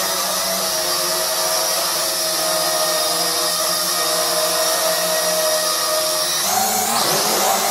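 JDRC JD-20S toy quadcopter hovering, its small motors and propellers making a steady, high buzzing whine. About six and a half seconds in, the pitch briefly rises and wavers as the motors change speed, then settles again.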